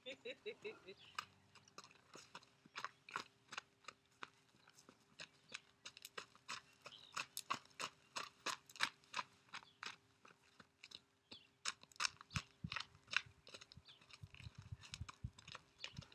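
Horse's hooves at a canter on grass and dirt, a quick uneven run of sharp thuds and crunches, with deeper thuds in the last few seconds as the horse comes closer.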